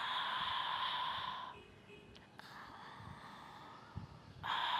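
A woman's forceful open-mouthed breath through a tightened throat, the ujjayi breathing sound: a loud breathy rush drawn in for about a second and a half, then, near the end, a second long forceful breath out.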